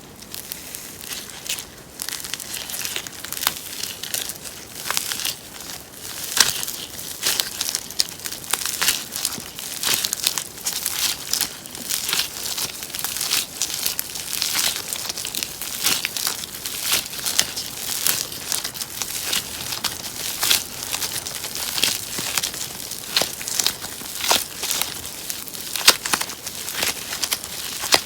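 Slime being squeezed and worked by hand, giving a dense run of small crackling pops and clicks, with a few sharper ones.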